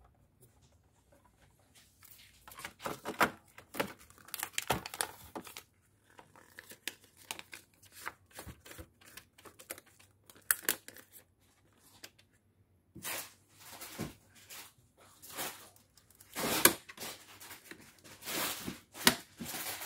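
Paper label roll and its backing being handled and threaded through the media guides of a Zebra ZD621 label printer: irregular rustling and crinkling with small plastic clicks and knocks. The clatter is loudest near the end, as the printer's lid is closed.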